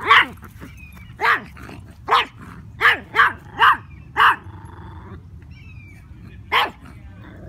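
Small dog barking at another dog: about eight short, high-pitched barks at irregular gaps, several coming in quick succession in the first half, with one last bark near the end.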